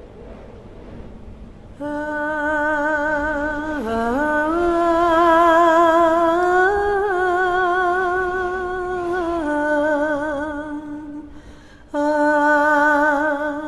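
A woman humming a cappella: long held notes with a wavering vibrato, sliding up and down between them. The voice comes in about two seconds in over a faint low rushing noise, breaks off briefly near the end, then starts again.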